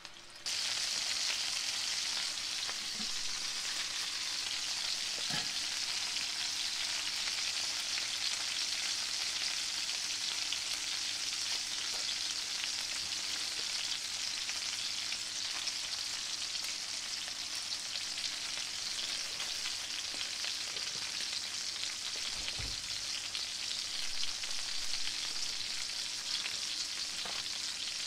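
Burger patties sizzling in a cast-iron skillet: a steady frying hiss that starts about half a second in.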